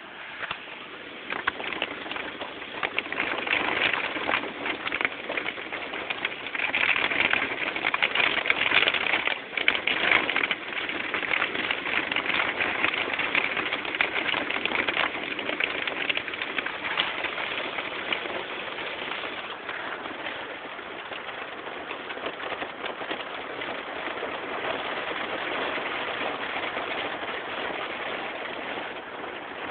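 Heavy storm rain falling on a car's roof and windshield, heard from inside the car as a dense patter that swells and eases with the gusts. It is heaviest in roughly the first half and eases a little after that.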